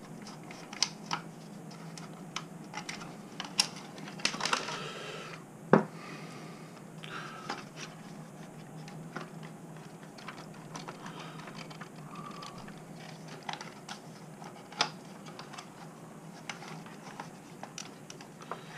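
Irregular small clicks, taps and a brief scraping rustle as a tiny screw is worked out with a small screwdriver and the body shell is struggled off an RC crawler chassis; the sharpest click comes about six seconds in.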